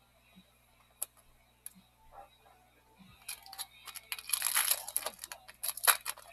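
Foil trading-card pack wrapper being torn open and crinkled in the hands, starting about three seconds in after a couple of faint clicks.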